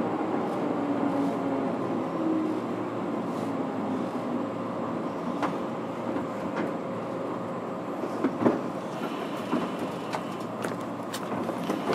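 Onboard running sound of a JR Kyushu 103-1500 series electric train, heard inside the motor car: the MT55 traction motor hum falls in pitch over the first few seconds as the train slows, over a steady rumble of wheels on rail with scattered clicks.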